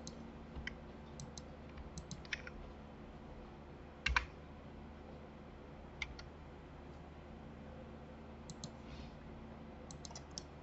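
Scattered clicks of a computer keyboard and mouse, a few at a time with gaps between, the loudest a quick double click about four seconds in. A faint steady hum lies underneath.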